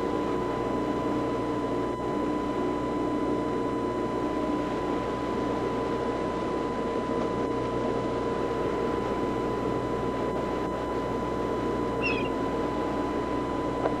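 Steady drone of a boat under way: engine hum over the rush of water from its wake, even in level. A brief high call near the end.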